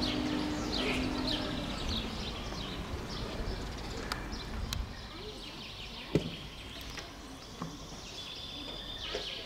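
Small songbirds chirping in the trees, a run of short, quickly falling chirps over a steady outdoor background hush. A low hum stops about a second and a half in, and a single sharp knock sounds about six seconds in.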